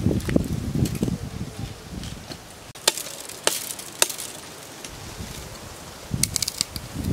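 Dry branches rustling and scraping through brush, then sharp snaps of dry sticks broken by hand: a few single cracks about three seconds in and a quick run of cracks near the end.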